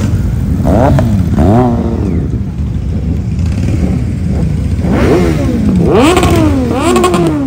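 Superbike engine revved in sharp throttle blips over a low rumbling idle: two blips near the start, then three in quick succession in the second half.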